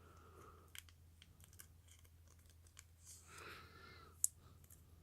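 Faint handling noises of trading cards and their plastic cases: scattered soft clicks and a light rustle, with one sharp tap a little past four seconds in.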